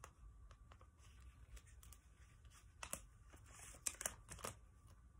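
Folded printer paper being handled, faintly rustling and crinkling. A few sharper crackles and a short rustle come between about three and four and a half seconds in.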